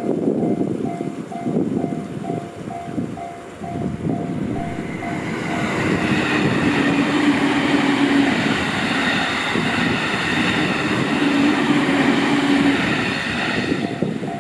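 A JR Takasaki Line train passing over a level crossing. Its wheels knock over the rail joints at first, then from about five seconds in a louder rushing of wheels on rail with a steady hum takes over. The crossing's warning bell rings at the start and is then drowned out by the train.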